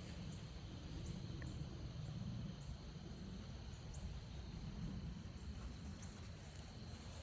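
Crickets trilling steadily, with short high chirps scattered through, over a steady low rumble.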